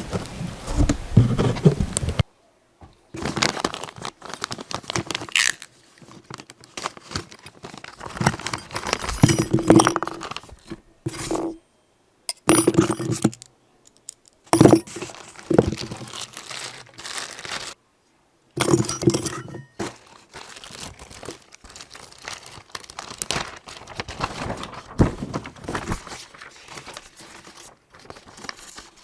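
Cardboard box and packing material being handled, torn and rustled in irregular bursts of crinkling and crunching, with a few abrupt silent gaps.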